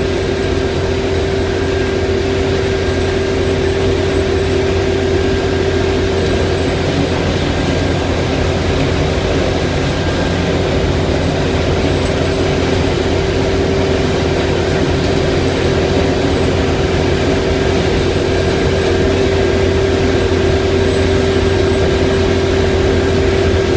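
Combine harvester running steadily: a constant low engine drone under a steady whine, with no change in speed.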